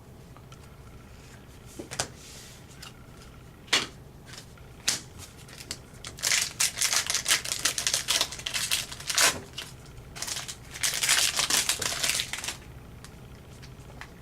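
Trading cards and a foil pack wrapper being handled: a few sharp snaps, then two runs of rapid crinkling and clicking of wrapper and card stock.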